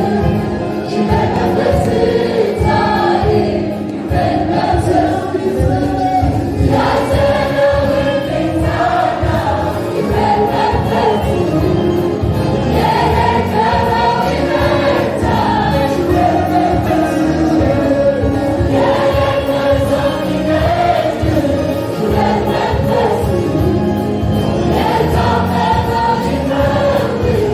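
Large church choir of men and women singing an Amharic gospel song, continuous and full-voiced.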